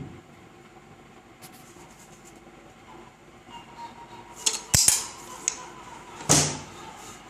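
Metal tools or gearbox parts clanking and clinking in a workshop: a few sharp knocks about four and a half to five seconds in, then a louder clank with a brief ring about six seconds in, over a faint steady hum.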